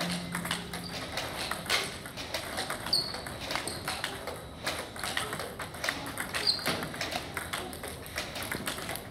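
Table tennis drill against a ball robot: celluloid-type plastic balls clicking rapidly off the paddle and bouncing on the table, in a fast, uneven run of sharp ticks, with a couple of short high squeaks.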